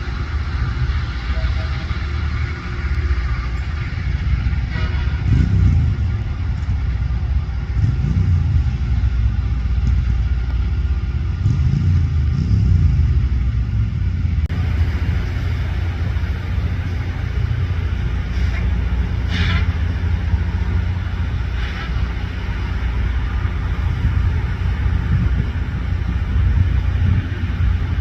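LORAM rail grinder working the track: a heavy, steady machine rumble with a few swells in pitch, changing abruptly about halfway through, after which there are a few brief squeals.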